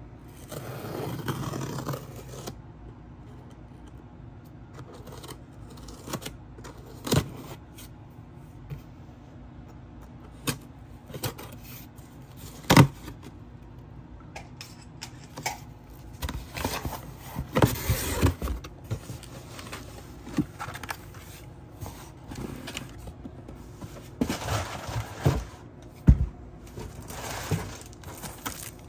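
Cardboard shipping box being opened and unpacked by hand: packing tape picked at and slit, flaps and packaging handled, with scraping, rustling and scattered sharp clicks and knocks. The loudest knock comes near the middle.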